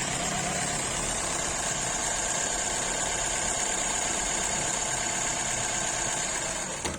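Jack 20U zig-zag sewing machine running steadily while sewing, then stopping abruptly just before the end.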